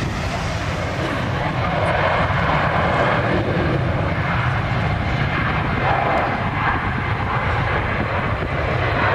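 Jet airliner's engines running at high power as it rolls along the runway: a loud, steady roar with a deep rumble underneath.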